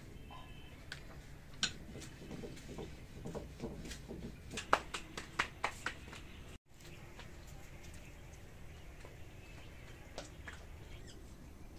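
Flattened naan dough being slapped between the palms by hand: a quick run of sharp pats about four to six seconds in, then only a few scattered soft pats.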